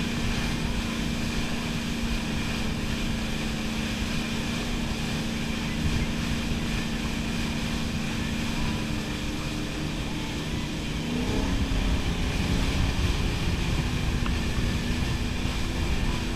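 Wakeboard boat's engine running steadily under way, a constant drone over the rush of water from the wake, with wind buffeting the microphone. The engine note shifts and the sound grows a little louder about eleven seconds in.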